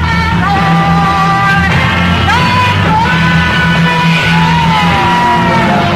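Loud live psychedelic rock band playing electric guitar and bass, with long held notes that slide up and down in pitch over a steady low bass line.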